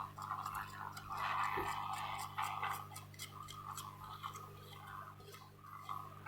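Irregular light clicks and ticks of small tools working components off a phone circuit board, over a steady low electrical hum and a hiss that swells and fades.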